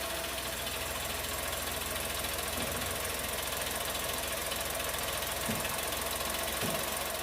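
Chevrolet Tracker's three-cylinder turbo engine idling steadily just after a cold first start of the day, heard with the hood open, with the fairly loud cold-engine noise that the dealer's mechanic told the owner is normal.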